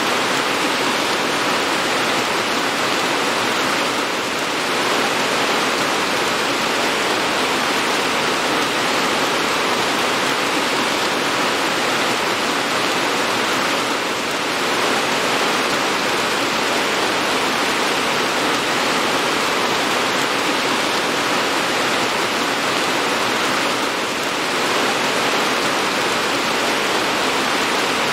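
Steady rain: a dense, even hiss with no single drops standing out, easing slightly for a moment about every ten seconds.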